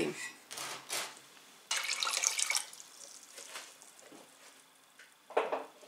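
Water poured into a stainless-steel pot of granulated sugar, splashing for just under a second, with fainter splashes before it. A short, louder sound near the end.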